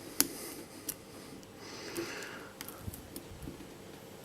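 Small clicks and ticks of a lock pick working the spool pins of a Yale Y221 padlock held under tension, with a sharp click about a quarter second in, another near one second, and a few faint ticks later. Soft breaths through the nose in between.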